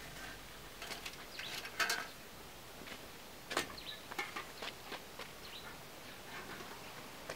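Metal cooking pots and dishes clinking and knocking as they are handled, with the loudest clatter just under two seconds in and another knock about three and a half seconds in.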